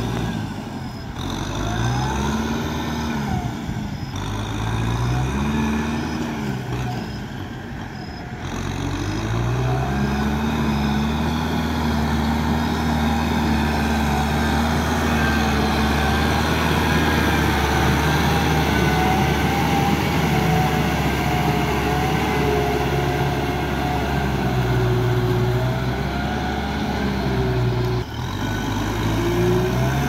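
Kubota tractor's diesel engine pulling a disc plough: its speed rises and falls several times over the first eight seconds or so, then holds high and steady under load, with a short drop near the end.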